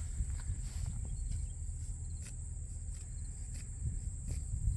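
Field insects, crickets, trilling steadily at a high pitch, over a low rumble and a few faint scattered clicks.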